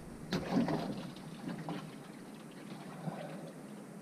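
Water splashing and trickling: a bream dropped back into the water about a third of a second in, followed by a second of splashing and faint dripping.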